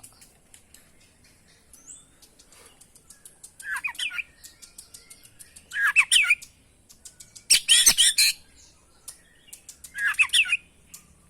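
Oriental magpie-robin (kacer) singing in four short bursts of rapid, varied warbling phrases, the loudest about eight seconds in, with quick clicking notes between the bursts.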